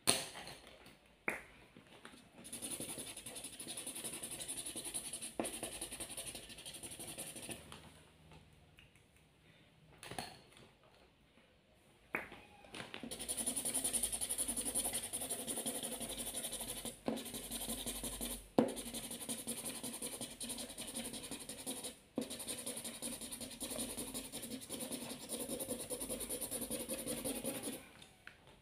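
Felt-tip marker scribbling fast back and forth over paper, colouring in a patch in two long spells with a pause between them. A few sharp clicks come along the way.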